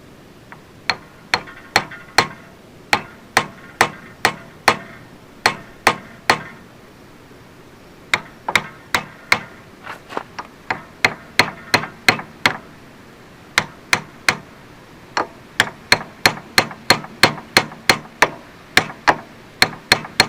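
Hammer tapping repeatedly on the bent handlebar risers of a 1983 Suzuki GS650L motorcycle to knock them straight. Sharp strikes come about two a second, in runs with short pauses between.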